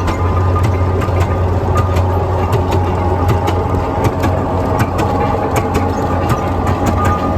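Victoria oil ploughing engine's horizontal twin-cylinder petrol-paraffin engine running: a steady low drone with frequent sharp, irregular clicks from the engine.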